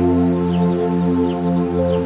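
New-age ambient meditation music: slow, sustained synthesizer chords over a low drone, with faint short high bird chirps laid over it.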